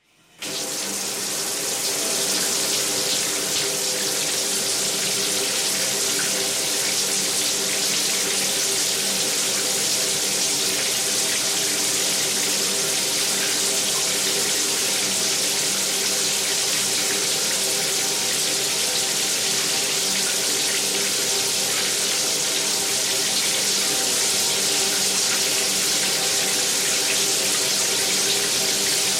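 Bathtub filling from the tap: a steady rush of running water pouring into the tub, with a few steady low tones under the hiss. It comes in sharply at the start and then holds even.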